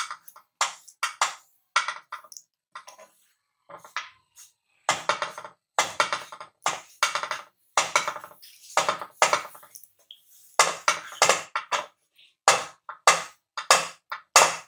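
Wooden spatula scraping and knocking against a non-stick frying pan while stirring gram flour (besan) as it dry-roasts on a low flame, in short irregular strokes about one or two a second.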